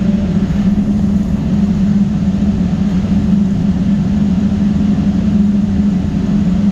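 Steam boiler room machinery running steadily: a constant low rumble with a strong hum, like burners firing and blowers and pumps working.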